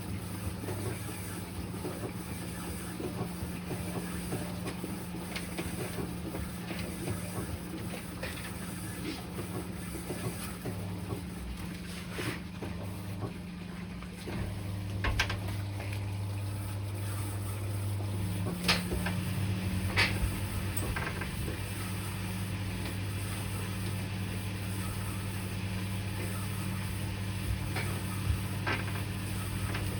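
Electrolux Quickwash commercial washing machine running a wash, a steady motor hum with occasional clicks and knocks; the hum grows louder about 14 seconds in and changes again about 18 seconds in. The load is badly over-sudsed.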